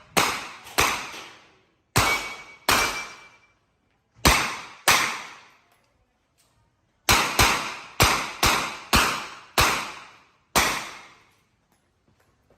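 Revolver shots fired at match pace, each with a short echo: three pairs with pauses of over a second between them, then a quicker string of six, then one last shot.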